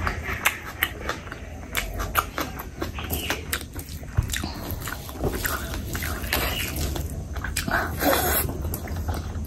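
Close-miked wet chewing and lip smacking of rice and spicy curry eaten by hand, with a fresh handful pushed into the mouth near the end.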